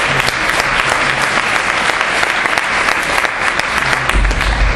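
Audience applauding: steady, dense clapping from many hands, with a brief low thud near the end.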